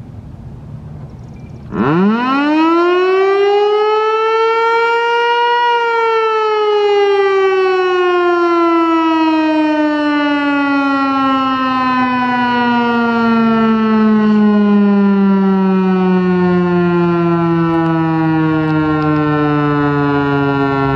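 Federal Signal Eclipse 8 outdoor warning siren sounding its noon blast. It starts about two seconds in, rises quickly in pitch for about four seconds, then slowly falls in pitch for the rest of the time.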